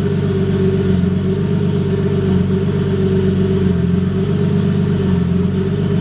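Turbocharged Nissan RB25 straight-six engine running at a steady speed, without revving.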